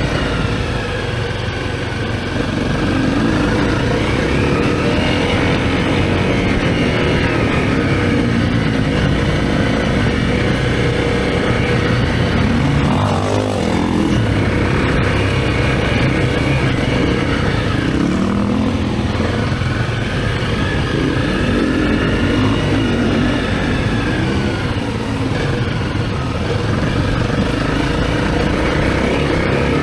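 Honda CRF250L's single-cylinder four-stroke engine running under way on a dirt track, the revs rising and falling with throttle and gear changes. The revs drop sharply a little under halfway through and again about two-thirds through, then build again.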